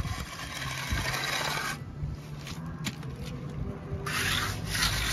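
Hand trowel working fresh, wet concrete, a rough scraping hiss that comes in strokes: a run at the start and again from about four seconds in. A steady low hum sits underneath.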